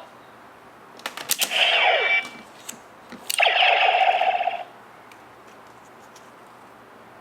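DX Neo Decade Driver toy transformation belt: sharp plastic clicks as it is worked with a rider card, each followed by an electronic sound effect from its small speaker. The first sound falls in pitch, and the second is a steady tone that cuts off suddenly.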